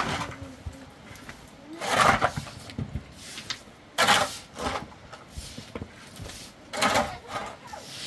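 Metal shovel scraping into loose dirt and stones, a short gritty scrape with each scoop, about four scoops two to three seconds apart.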